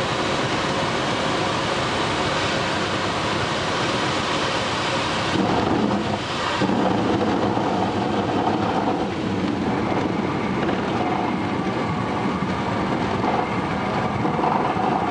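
Cabin noise of a Cessna 150 landing on a grass strip: the Continental O-200 four-cylinder engine throttled back, with a steady rush of air and noise. About five seconds in, the hiss falls away and a heavier rumble takes over as the aircraft rolls out on the grass.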